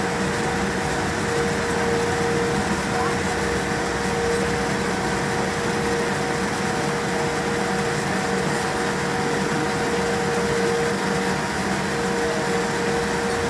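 Steady cabin noise inside a Boeing 787-9 as it taxis: the engines at low thrust, air-system hiss and a steady hum.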